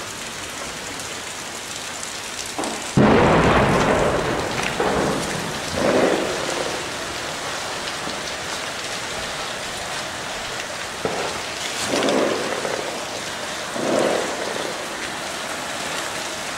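Steady rain falling, with several heavy booms: one sudden and loudest about three seconds in that dies away slowly, then weaker rolling booms near five, six, twelve and fourteen seconds. The uploader presents the booms as shelling.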